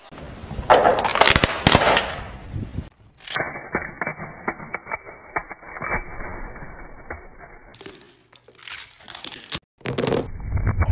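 Crunching and cracking of objects being crushed under a car's tyres, with a dense cluster of sharp cracks in the first three seconds, then a run of smaller cracks and pops. The sound changes abruptly a few times, as between short cuts.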